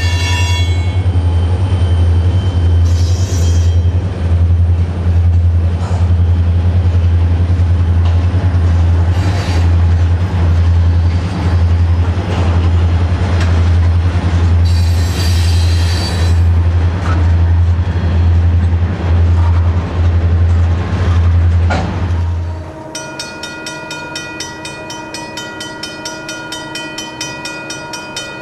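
Railroad hopper cars rolling past: a loud, rhythmically pulsing low rumble from the wheels and trucks, with a few brief high wheel squeals. About 23 s in, the rumble cuts off and a grade crossing bell rings in a fast, steady repeat.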